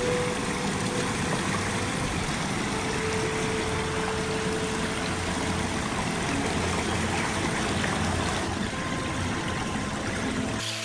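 Floodwater running steadily over and through a steel-pipe drain grate.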